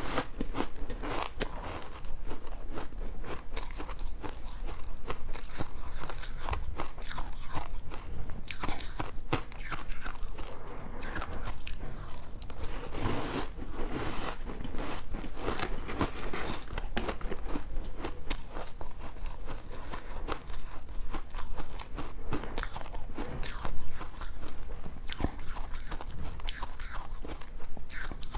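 A person biting into ice and crunching it, crisp cracks following one another without a break, with one louder crunch a little before the end.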